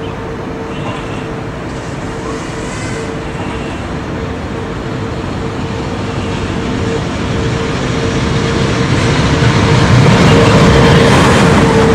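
DB class 110 electric locomotive hauling a passenger train approaching along the platform and passing close by, its running noise growing steadily louder to its loudest near the end as the locomotive goes past. A steady humming tone runs underneath.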